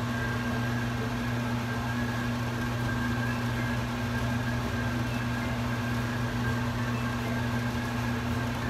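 Steady low hum with a faint, constant high whine above it: unchanging background room noise with no other events.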